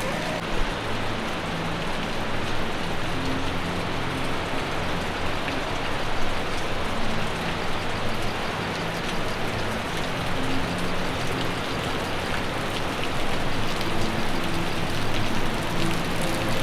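Steady rush of falling water from a waterfall, with the low whine of an RC crawler's electric motor rising and falling in pitch underneath.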